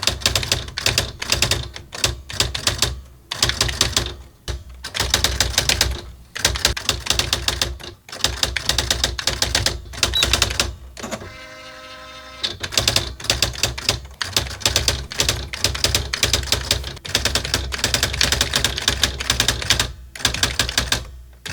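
Nakajima WPT-150 electronic daisywheel typewriter printing as it is typed on: runs of rapid, sharp strikes of the print wheel broken by short pauses. About halfway through there is a brief, steady motor whir.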